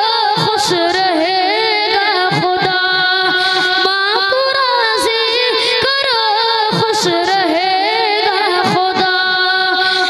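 A young boy singing a naat (an Islamic devotional song) into a microphone. A single voice holds long, wavering, ornamented notes throughout.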